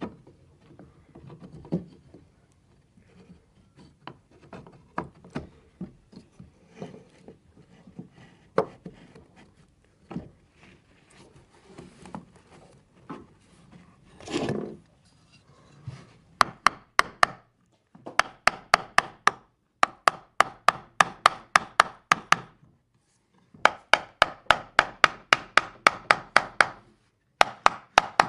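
Wooden parts handled with scattered knocks and rubbing, then rapid light tapping on wood, about five sharp taps a second in several runs with short pauses.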